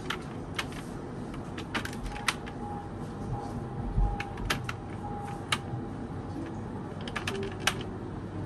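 Scattered light clicks and taps at irregular intervals, about a dozen in all, over a steady background hum.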